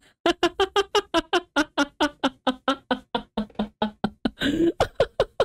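A man laughing hard: a long run of rapid "ha" bursts, about five a second, with a longer wheezing breath a little past four seconds.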